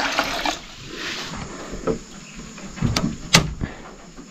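Sharp knocks of wood in a wooden goat pen: a faint one about two seconds in, then two loud ones close together about three seconds in. A brief rushing noise fades out right at the start.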